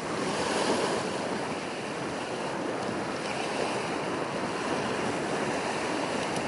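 Steady rushing noise of wind and small waves at the water's edge, with no distinct engine or horn.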